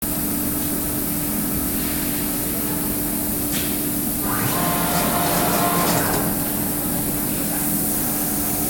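Steady machine hum and fan hiss from a running wave soldering machine line, with a constant low tone underneath. About four seconds in, the noise swells for a couple of seconds with a faint whine, then settles back.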